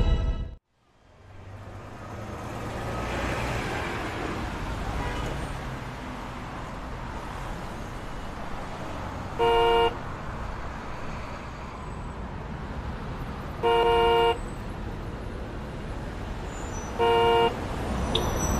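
City traffic hum starting about a second in, with a car horn honking three times in short blasts a few seconds apart.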